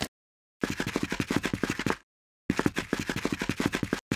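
Animation sound effect of rapid scuttling clicks for the Lego Wiggler caterpillar scurrying in, in two bursts of about a second and a half with a short break between.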